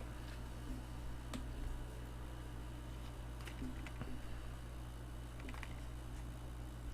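Faint, scattered clicks and light rustles of a plastic Blu-ray case and its packaging being handled, over a steady low hum.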